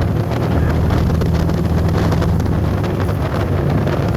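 A vehicle engine running steadily while riding, with wind buffeting the microphone.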